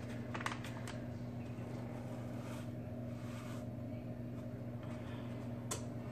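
Faint kitchen handling: a few light clicks and knocks, and a soft rustle as a packet of chicken gravy mix is emptied into an empty soup can. A steady low hum runs underneath.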